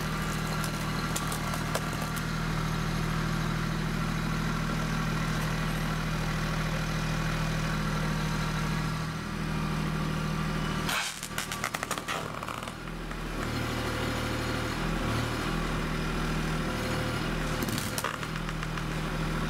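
Kubota B2261 compact tractor's three-cylinder diesel engine running steadily while working the front loader, its note shifting as it comes under load about halfway through. A brief burst of sharp clatter comes about halfway through, and a shorter one near the end.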